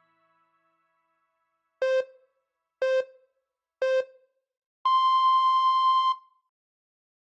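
Quiz countdown timer beeps: three short, lower beeps about a second apart, then one longer, higher beep marking time up.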